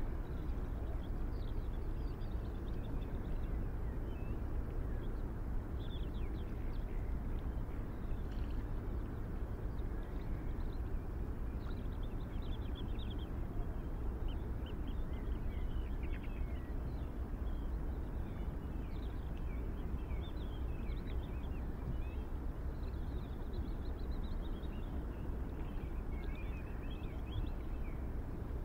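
Steady low outdoor rumble, open-air ambience, with small birds chirping faintly off and on throughout.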